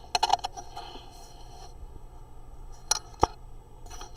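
Small, sharp clicks and taps of plastic HO-scale model railroad cars being handled: a quick cluster of clicks at the start, then two sharp clicks near the three-second mark.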